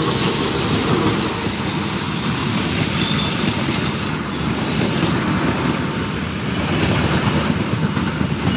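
Diesel-hauled passenger train passing close by: the CC 206 diesel-electric locomotive goes past at the start, then the coaches roll by with a loud, steady rumble of wheels on rail.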